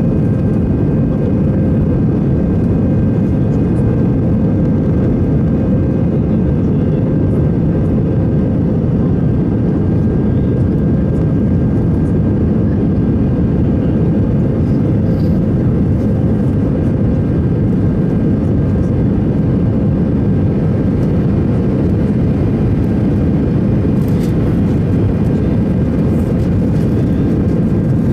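Airbus A320 cabin noise in flight while climbing out after takeoff: a loud, steady rush of engine and airflow noise with a faint steady hum over it.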